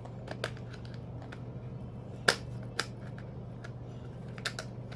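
Jigsaw puzzle pieces clicking and tapping as they are handled and set down, scattered light clicks with the sharpest a little over two seconds in.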